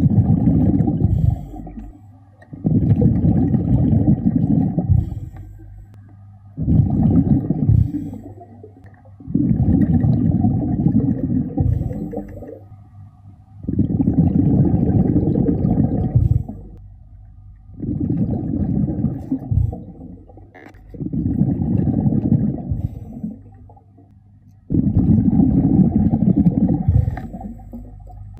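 A scuba diver's exhaled bubbles rushing out of the regulator underwater, in muffled, low, bubbling bursts of two to three seconds each. Quieter gaps for the in-breath come between them, about every three to four seconds: the steady rhythm of the diver's breathing.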